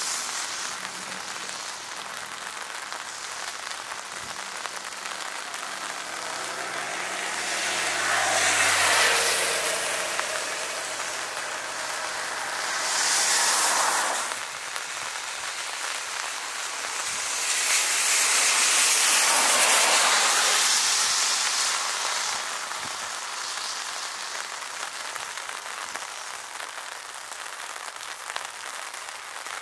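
BAE Hawk T1 jet taxiing in the rain: a steady hiss of rain, with the jet's rushing engine noise swelling up and fading several times, one swell cutting off suddenly about halfway.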